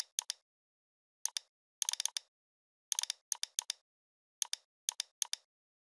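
Computer mouse button clicks: sharp clicks in quick press-and-release pairs and short clusters of three or four, with dead silence between them.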